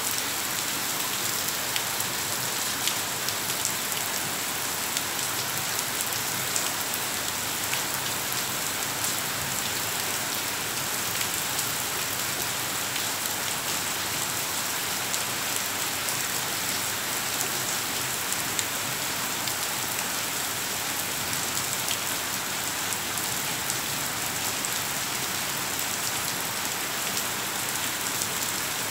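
Steady rain falling: a constant even hiss with many small drop ticks throughout.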